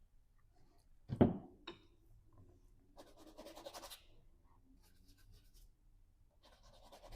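Paintbrush scrubbing oil paint onto canvas in short scratchy strokes, the longest burst about three seconds in. A single dull thump about a second in is the loudest sound.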